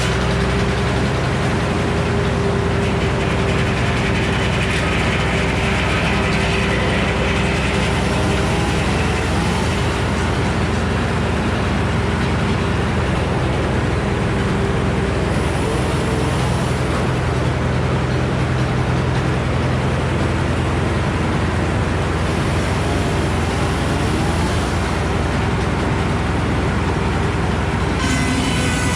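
Frick circular sawmill running steadily: its power unit drones at an even pitch under the whir of the spinning blade while the log is being squared.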